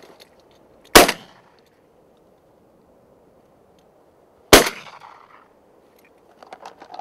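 Two shotgun shots with Eley VIP Steel steel-shot cartridges, about three and a half seconds apart, each a sharp crack that dies away within half a second. A few faint clicks follow near the end.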